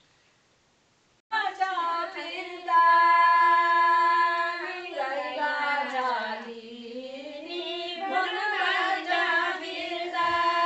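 A group of women singing a Nepali Sangini folk song without accompaniment, holding long drawn-out notes. The singing begins about a second in, after a brief silence.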